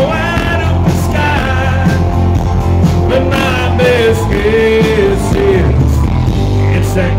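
Live country band playing loudly through a club PA: acoustic guitar, electric bass and drums, with a man singing.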